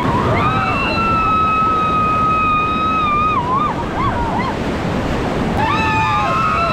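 Rushing river water on a whitewater rafting run, with long, high-pitched whoops held over it: one of about three seconds near the start that wavers as it ends, and another starting near the end.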